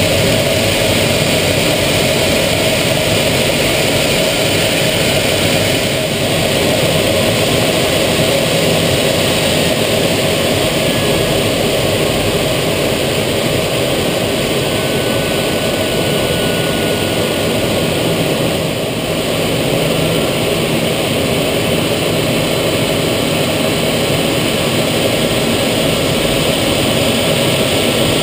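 Steady noise inside the cockpit of an Aero L-39 Albatros jet trainer in flight: the rush of its single turbofan engine and the airflow over the canopy.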